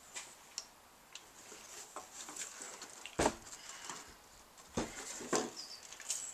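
Light clicks and knocks of paint tins and containers being handled, with a sharper knock about three seconds in and two more near five seconds.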